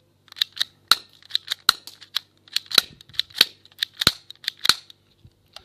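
BB gun firing and its mechanism clicking: a quick, irregular run of about fifteen sharp snaps over five seconds.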